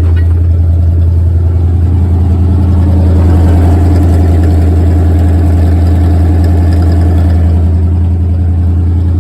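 Truck engine running through headers and Dynomax Race Bullet mufflers: a loud, deep, steady exhaust note that swells a little about three seconds in, then settles.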